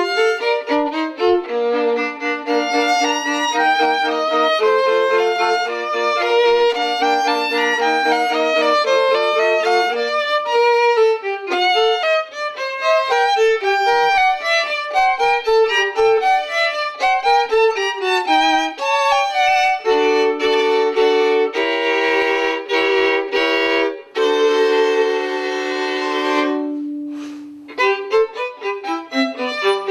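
Solo violin playing a lively piece of quick runs, at times two notes at once, with a long held low note about 25 seconds in.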